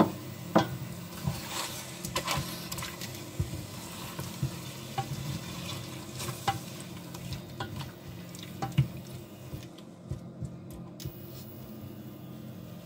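A plastic spoon stirring diced chicken breast in a little water in a stainless steel pot, with irregular knocks and scrapes of the spoon against the pot's sides and base.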